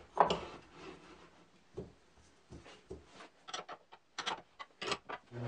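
Handling sounds on a homemade wooden lathe as the blank is clamped between centres: a solid wooden knock about a quarter second in, then a series of short sharp clicks as a wrench tightens the nut on the tailstock bolt.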